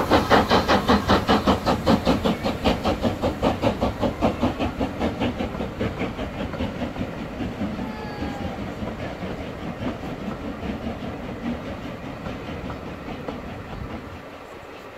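Steam locomotive working a train, its exhaust beats coming evenly about five a second. The beats fade steadily as the train draws away until they are faint near the end.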